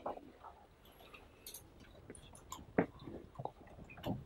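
Scattered small clicks and taps at irregular intervals, with faint room noise between them.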